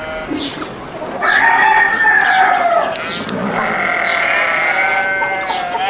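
Barnyard ambience: farm animals bleating in two long drawn-out calls, one starting about a second in and another near the middle, with short high chirps scattered through.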